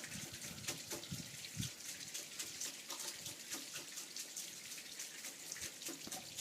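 Snowmelt running down a rain chain, trickling with a steady patter of drips and splashes.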